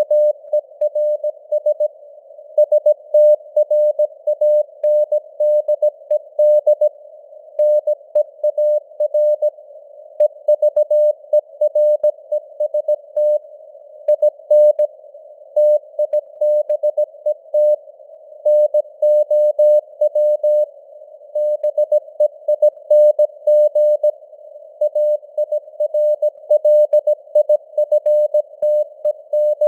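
Morse code sent at 17 words per minute: a single steady beep tone keyed into short dots and longer dashes, with pauses between letters and words. It sits in a narrow band of simulated radio hiss that carries on between the characters, like a CW signal heard through a receiver's filter.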